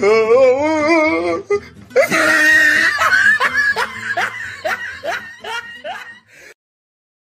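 Dubbed-in comedy sound effects: a wavering, warbling voice-like tone for about a second and a half, then a run of quick repeated laughter that fades and cuts off to silence near the end.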